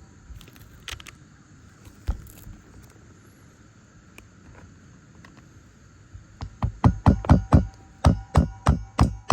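A few scattered light knocks, then about six seconds in a hammer starts striking fast and evenly, about four blows a second, as a nail is driven into a roof shingle.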